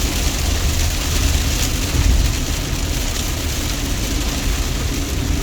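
A car driving in the rain, heard from inside the cabin: a steady low road rumble under the hiss of rain and wet tyres.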